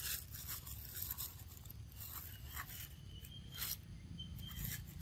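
Macaques biting and chewing into whole ripe mangoes: scattered soft crunching and scraping of teeth on mango skin and flesh, the loudest bite about three and a half seconds in.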